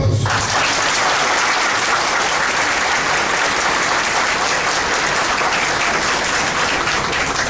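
Audience applauding, starting abruptly and holding steady before dying down near the end.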